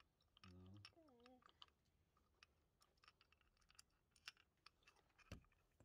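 Near silence with faint, scattered clicks and ticks. A short murmur of a voice comes about half a second in.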